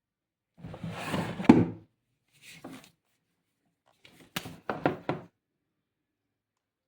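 Hard objects being handled and set down during unpacking: a scraping shuffle ending in one sharp thunk about a second and a half in, a short rustle, then a quick cluster of knocks about four to five seconds in.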